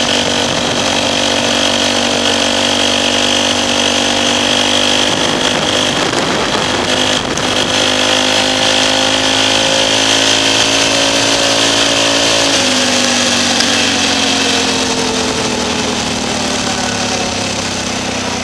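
Polaris Sportsman 500 ATV's single-cylinder engine running under way through a GSE aftermarket performance muffler. The engine note climbs slowly, drops abruptly about two-thirds of the way through, then falls steadily as the throttle is let off.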